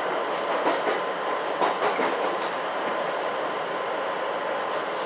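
Cabin running noise of a JR West 227 series electric train: a steady rumble and hiss, with a few rail-joint clicks in the first two seconds and a faint steady high tone.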